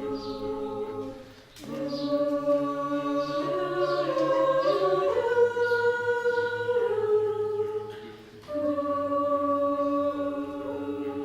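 A cappella group singing sustained chord harmonies with no lyrics audible, over a held bass note. The chords change every second or two, with a brief break about a second and a half in and another near the end.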